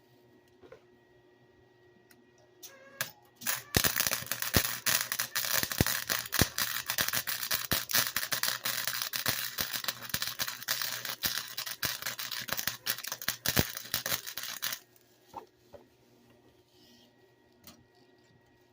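Welding arc crackling and popping on the sheet metal of a car's driver door. It runs for about eleven seconds, starting a few seconds in and cutting off suddenly.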